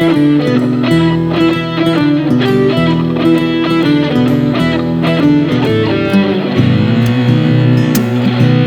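Music: a guitar-led instrumental passage over bass notes, with no singing, closing out the song.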